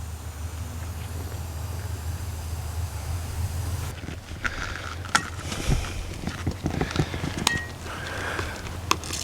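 A metal tool scraping and clicking against a tire while a nail stuck in the tread is worked loose, with a few sharp clicks in the second half over a low steady rumble.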